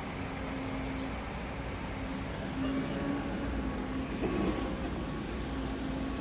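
Steady engine drone with a low rumble and a mid-pitched tone that comes and goes, swelling briefly about four seconds in.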